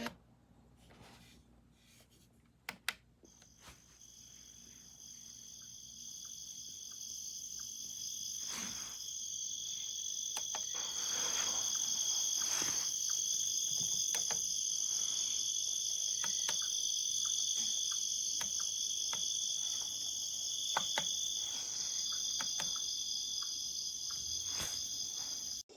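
Recorded cricket chirping played as a nature sleep sound through the ecozy sunrise alarm clock's built-in speaker. It fades in over the first several seconds, holds steady, and stops abruptly at the end. A couple of sharp clicks come near the start.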